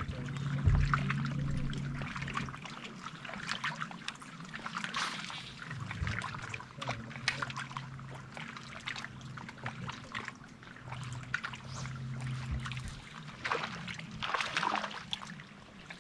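Small waves lapping and trickling against a bass boat's hull, over the steady low hum of an electric trolling motor. The hum stops about 13 seconds in.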